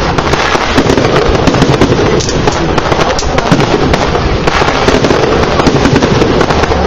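Aerial fireworks going off in a dense, continuous barrage: many rapid bangs and crackling with no break between them.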